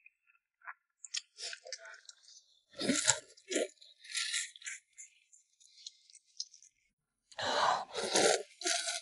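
Close-up eating sounds of pig's trotter noodles in soup: chewing and mouth noises, with two louder stretches about three seconds in and near the end.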